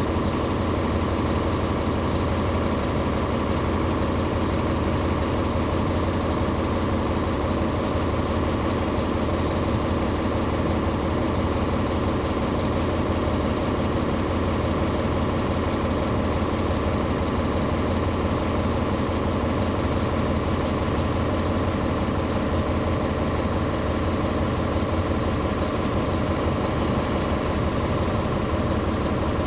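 Caterpillar C13 inline-six diesel engine of a 2009 NABI 40-SFW transit bus running at a steady pitch, heard from the rear seats close to the engine.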